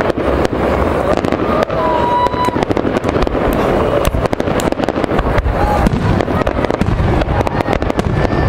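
Fireworks display: a continuous rapid volley of shells launching and bursting, with dense bangs and crackling.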